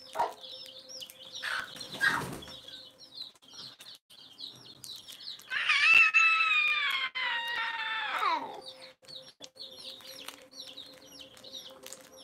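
Chicks peeping rapidly all through, and about halfway through a rooster crows once, a loud call of about three seconds that drops in pitch at the end. A brief rustle comes about two seconds in.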